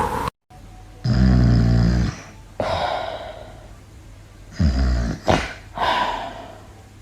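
Snoring: twice, a loud, low rasping snore on the in-breath is followed by a softer, breathy out-breath that fades away.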